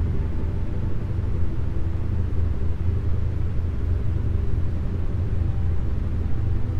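Isochronic-tone meditation soundtrack: a loud, steady low rumbling tone pulsing rapidly, with faint held chord tones above it.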